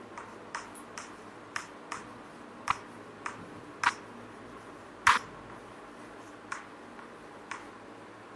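Chalk tapping and clicking against a greenboard as letters are written, one sharp click with nearly every stroke. There are about a dozen at irregular spacing, the loudest about five seconds in.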